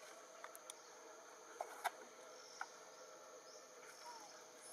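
Faint steady drone of insects, crickets or cicadas, with a few short soft clicks, the loudest a little under two seconds in.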